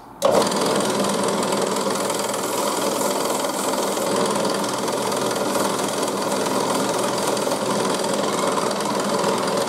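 Bench drill press switched on and running steadily, spinning a stepped sanding spindle while a piece of rubber mat is held against the sandpaper to clean it. The motor starts abruptly just after the beginning and keeps an even running sound throughout.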